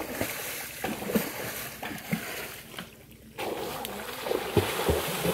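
Water splashing and churning as a man dives head-first into a shallow pond and kicks, with a few low thuds near the end.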